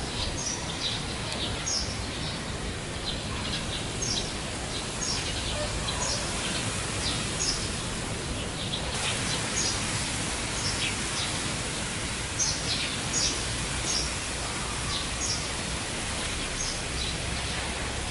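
Steady hiss of background noise with frequent short, high chirps of small birds scattered through it.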